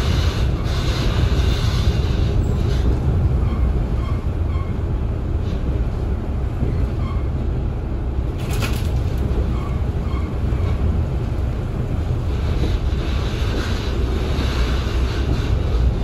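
KiHa 40 diesel railcar running at speed, heard from inside the car: a steady low rumble of the train under way, with a sharp click a little past halfway.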